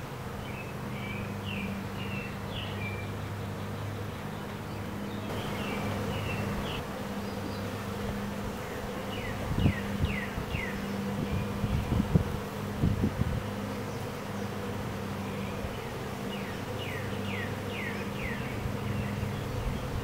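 A freshly hived swarm of honey bees buzzing around the entrance holes of a top bar hive: a steady hum. A few low thumps come midway, and short high chirps repeat in the background.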